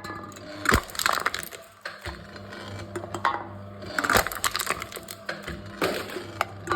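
Aluminium drink cans being crushed in a wooden can-crushing machine: a run of crunching, crackling metal crunches every second or two, over a steady low machine hum.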